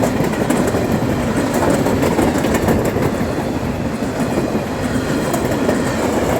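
Freight train wagons carrying intermodal containers and empty steel-coil stillages rolling steadily past close by, wheels clicking over the rail joints.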